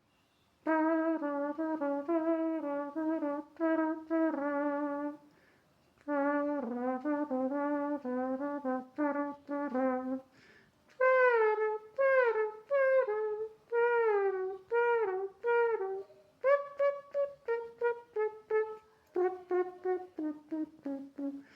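A person imitating a trumpet with the mouth, playing a melody in phrases. There are short pauses about five and ten seconds in, and the later notes are short and detached.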